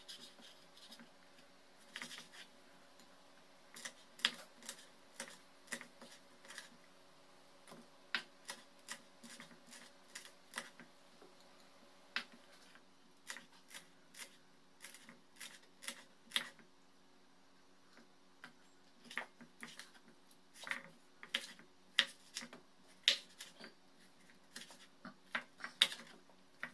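Kitchen knife knocking on a wooden cutting board while slicing tomatoes and red chilies: sharp, irregular taps in clusters with short pauses. A faint steady low hum runs underneath.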